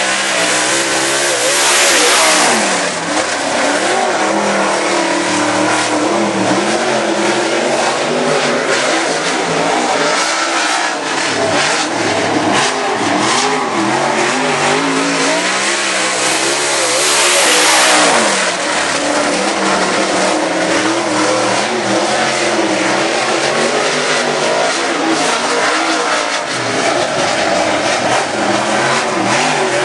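Dirt late model race car's V8 engine revving hard and easing off as it laps the dirt oval, its pitch rising and falling through the corners. It swells louder twice, about two seconds in and again about seventeen seconds in.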